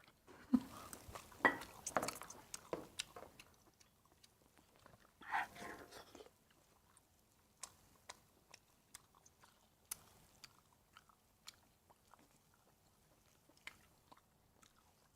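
Close-up chewing and biting of food, with irregular wet mouth clicks and crunches, denser in the first few seconds and sparser later.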